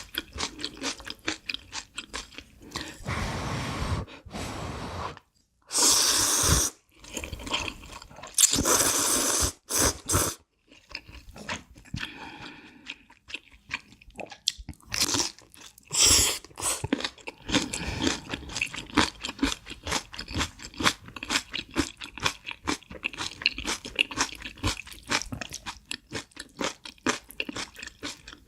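Close-miked crunching and chewing of crisp food, rapid crackling bites and chews, with a few longer noisy stretches of a second or two in the first half.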